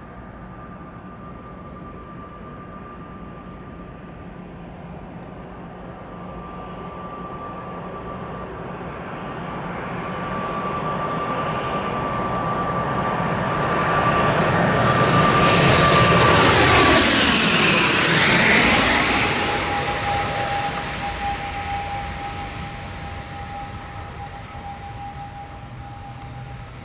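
ATR 72-600 twin-turboprop airliner on short final flying past: a steady high whine from its engines and propellers over a rushing sound swells, is loudest a little past the middle, and drops in pitch as the aircraft goes by, then fades away.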